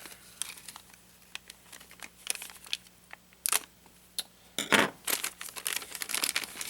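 Plastic packaging of RC car spare parts crinkling as it is handled, in scattered short crackles, with the loudest ones about three and a half and five seconds in.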